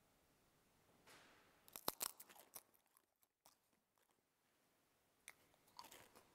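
Faint crunching and clicking as a priest breaks and eats the communion wafer, the sharpest crunches about two seconds in. A few fainter clicks follow near the end, against near silence.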